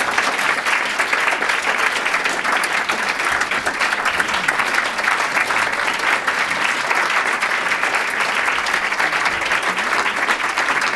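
Audience applauding: dense, steady clapping that holds at one level.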